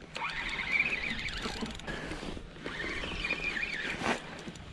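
Fishing reel being wound, in two spells of cranking: a whirring gear whine that rises as the handle gets up to speed, with fine ticking.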